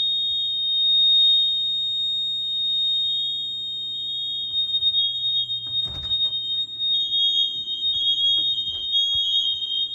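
Household fire alarms sounding, set off by smoke from a cooking accident: a steady high-pitched electronic tone with a second, slightly lower tone beeping in a repeating pattern over it.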